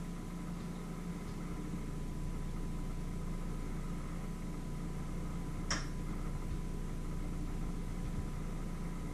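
Steady low mechanical hum with a faint steady high tone over it, and a single sharp click a little past halfway.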